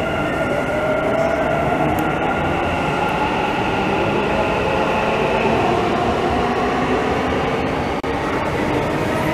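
Dubai Metro train pulling into an underground station behind glass platform screen doors: a steady rumble of wheels on rail with the electric motors' whine shifting in pitch as it slows.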